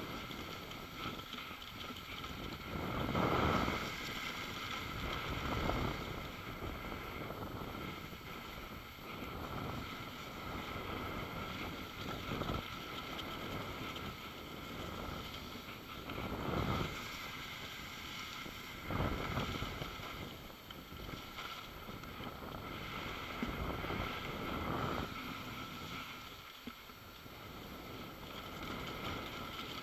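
Wind rushing over the microphone of a skier's camera during a fast off-piste descent, mixed with skis sliding on snow; the noise swells loudly every few seconds.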